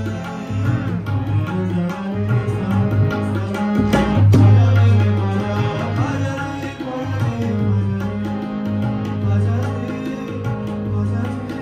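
Tabla and harmonium playing together: the harmonium holds sustained chords while quick tabla strokes keep the rhythm, swelling briefly a little after four seconds in.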